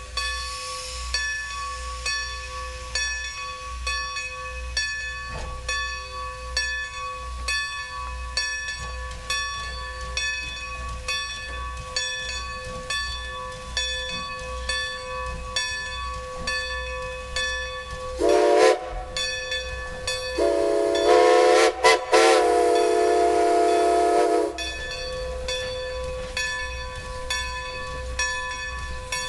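Steam whistle of Strasburg Rail Road No. 90, a 2-10-0 steam locomotive, sounding for a road crossing: a short blast about 18 seconds in, then a long blast with a brief break, about four seconds in all. A bell rings steadily throughout, about one and a half strokes a second.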